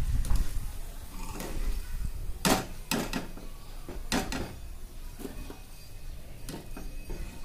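Metal wire spider strainer clinking and knocking against the kadai as deep-fried chickpeas are lifted out of the hot oil: about half a dozen irregular sharp clinks, the loudest a couple of seconds in, over faint frying.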